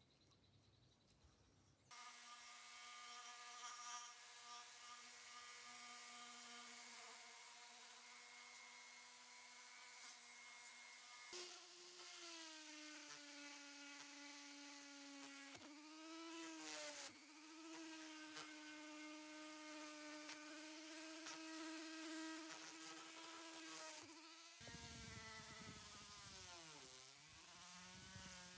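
Handheld rotary tool switching on about two seconds in and running with a steady whine while its small bit works on the screwdriver's steel tube. The pitch steps up about eleven seconds in and sags briefly several times as the bit is pressed against the metal.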